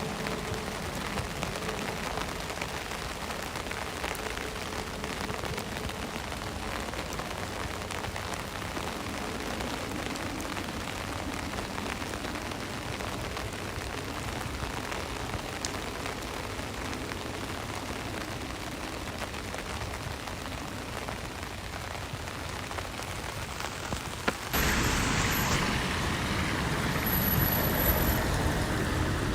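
Steady hiss of rain on a city street mixed with passing road traffic. About 24 seconds in it cuts abruptly to a louder, closer wash of the same kind of noise.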